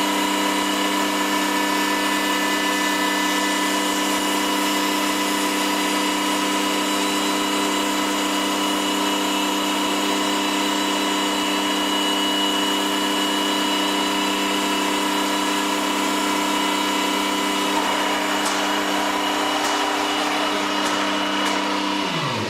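CNC machine spindle with a woodworking cutter running at speed and cutting wood: a steady high whine over a rough cutting noise, with a few sharp ticks in the last few seconds. Right at the end the whine drops steeply in pitch as the spindle slows.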